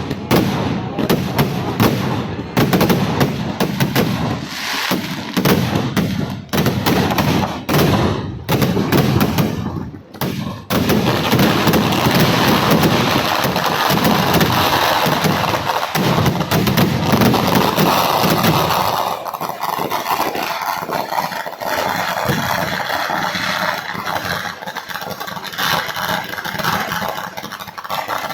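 Kerala temple-festival fireworks: a rapid barrage of firecracker explosions, bangs coming in quick machine-gun-like runs. After about eleven seconds the blasts merge into a continuous crackling din, which thins to lighter crackle from about nineteen seconds on.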